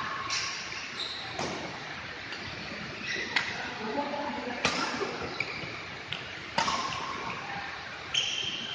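Badminton rackets striking a shuttlecock during a fast rally: a string of sharp smacks at uneven intervals, about one a second, ringing briefly in a large hall. Short high squeaks of court shoes sound between the hits.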